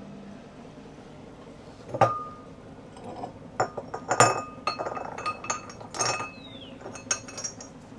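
Small crystal stones clinking against handmade ceramic dishes as they are picked up and set down. One sharp clink with a brief ring comes about two seconds in, then a run of lighter clinks and taps.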